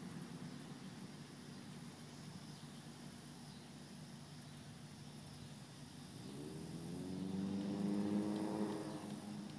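A motor vehicle's engine drawing near and passing, its hum rising in pitch and growing louder from about six seconds in, loudest near the end, then fading. Faint insect chirping runs underneath.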